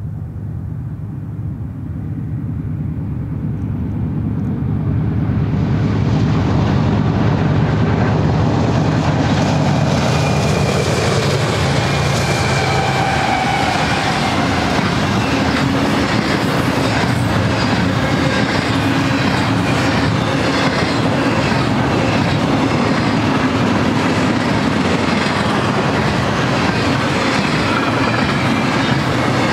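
BNSF GE C44-9W diesel locomotives pulling a double-stack intermodal train, growing louder over the first six seconds as they come up and pass. Then the loaded double-stack well cars roll by with a steady rumble, clickety-clack from the wheels on the rail joints, and faint wheel squeal.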